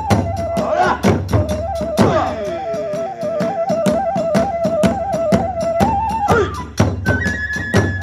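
Kagura hayashi music: a bamboo transverse flute holds a wavering, trilling note for several seconds, then steps up higher near the end. Rapid, steady drum and hand-cymbal strokes play underneath.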